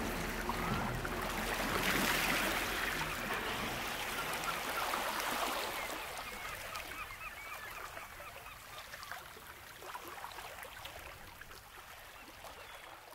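Rushing water like sea surf, with birds calling over it in short chirps. The whole sound fades out steadily toward the end.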